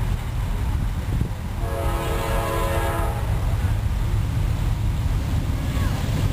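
Norfolk Southern diesel locomotive's air horn sounding one chord-like blast of about a second and a half, starting about one and a half seconds in, as the train approaches, over a steady low rumble.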